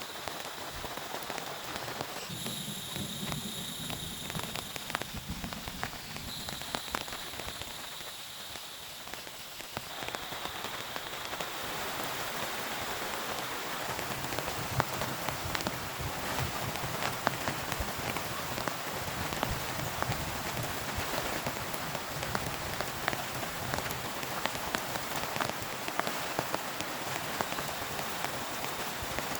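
Heavy rain falling steadily, with many sharp individual drop hits through the downpour. It grows louder and denser about ten seconds in. A faint high-pitched whine sounds twice during the first ten seconds.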